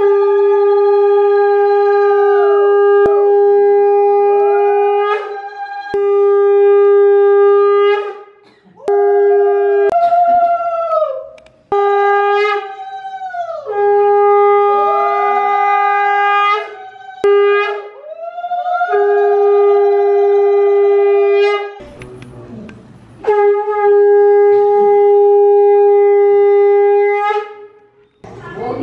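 Conch shell (shankh) blown in a series of long, steady blasts of a few seconds each, with short breaks between them. The note bends down at the end of each blast.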